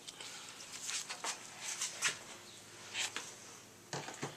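Scattered light clicks and scrapes as a plastic oil filler cap is screwed back onto the engine after an oil refill.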